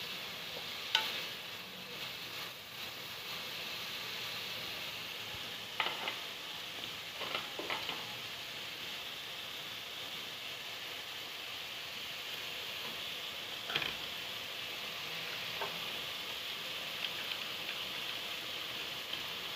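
Chicken and vegetables sizzling steadily as they stir-fry in a nonstick wok. A few short scrapes and knocks of the slotted spatula against the pan come through: about a second in, a cluster around six to eight seconds, and one near fourteen seconds.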